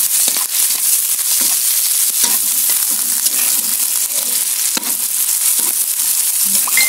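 Shrimp, sliced onion, garlic and ginger sizzling steadily in hot oil in a wok, with the repeated clicks and scrapes of a metal spatula stirring them.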